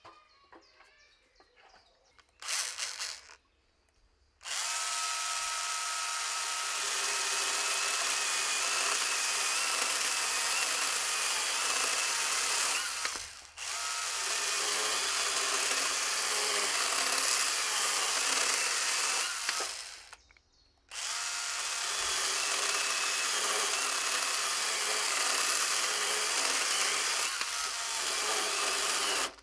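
Makita DUC101 18V cordless pruning saw running, its chain cutting through a thick log. A short burst comes about two seconds in, then three long runs of several seconds each, broken by brief pauses, with a steady motor whine.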